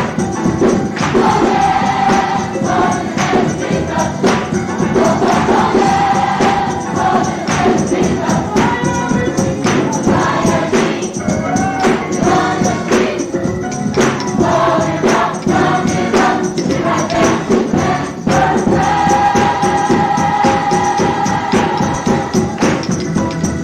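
Gospel choir singing with a tambourine keeping a steady beat, in a live concert recording; the voices hold long notes, one held especially long near the end.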